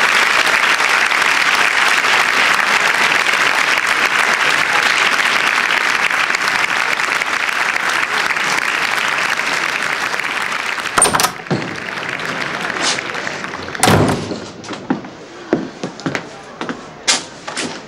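Audience applause that slowly dies away, then a sharp knock and a loud door thump, followed by footsteps of a person walking in, about two a second.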